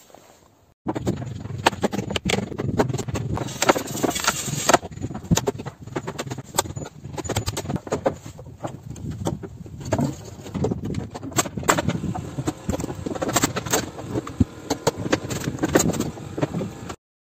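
Timber wall-framing work: many irregular sharp knocks and hammer blows on wooden studs over a constant rushing noise. It starts suddenly about a second in and cuts off just before the end.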